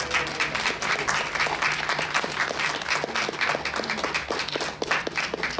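A small audience clapping, the irregular applause of a few dozen people that greets the end of a diatonic accordion tune.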